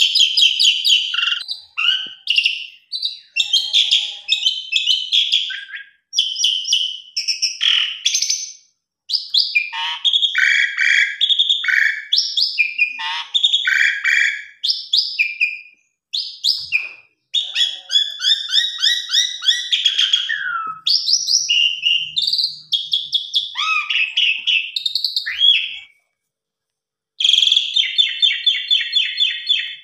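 Jalak suren (pied starling) singing a long, varied song of quick chattering phrases, rapid trills and whistles, broken by short pauses and a silent gap of about a second near the end.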